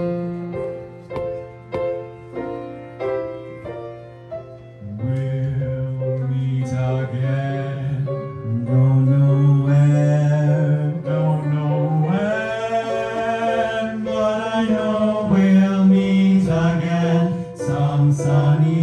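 Live song through a PA: an instrumental introduction of evenly spaced single notes over a held low note, then about five seconds in a low male voice comes in singing long held notes with vibrato, growing louder toward the end.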